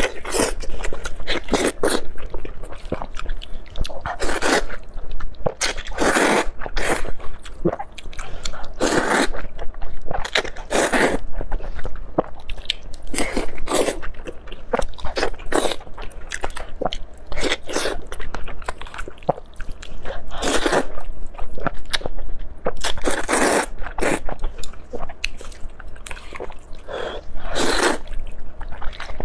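Close-miked eating of sesame oil fire noodles: repeated bites and chewing, loud bursts coming irregularly every second or two.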